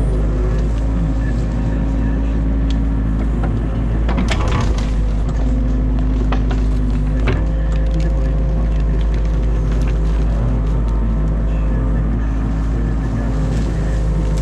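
Excavator diesel engine running steadily, heard from inside the cab, with sharp cracks of dam branches snapping about four seconds in and again about seven seconds in.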